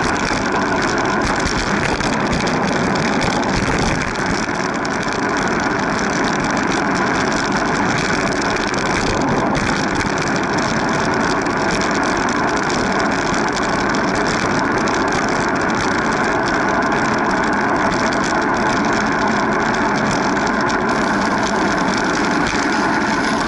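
Steady rushing wind and road noise on a camera mounted low on a moving bike, with scattered small knocks from bumps in the road surface.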